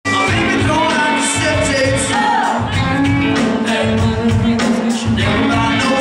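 Live band playing a song with a lead singer, over a steady beat.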